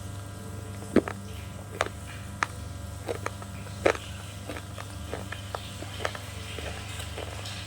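Brittle slate pieces crunching as they are bitten and chewed: a few loud, sharp cracks in the first four seconds, then smaller crackles.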